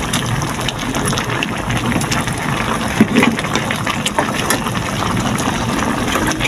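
Chopped roast pork stewing in its sauce in a wok: steady wet bubbling and sputtering, with the meat being stirred and turned in the sauce near the start.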